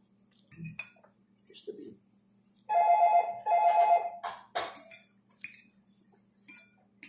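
An electronic tone sounding twice in quick succession about three seconds in, each lasting under a second, over light clinks of cutlery on plates.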